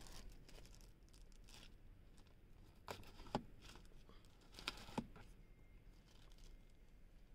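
Sun visor being handled through its protective plastic wrap: faint crinkling of the film, with four soft clicks in two pairs near the middle as the vanity mirror cover is worked.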